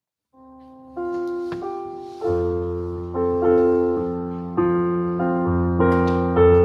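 Keyboard, piano-toned, playing slow chords: a soft chord about a third of a second in, then louder chords struck roughly once a second, each fading after it is struck. This is instrumental music for the preparation of the gifts at Mass.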